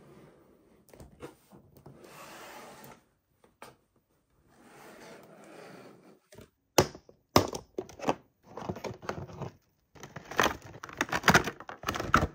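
Toy packaging and plastic parts being handled by hand: two spells of soft scraping or sliding, then a run of sharp clicks and knocks through the second half.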